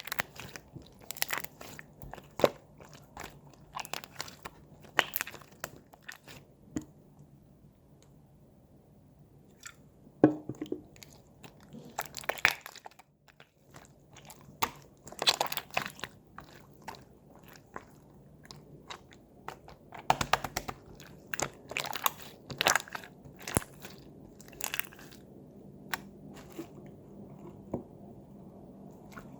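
Handmade clear slime made with soothing gel being squished and pressed by hand: irregular sticky pops and crackles, with a quieter lull around eight to ten seconds in.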